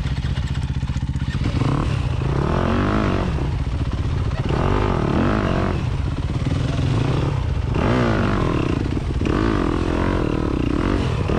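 Dirt bike engine running at low revs, the revs rising and falling in several surges as the throttle is worked.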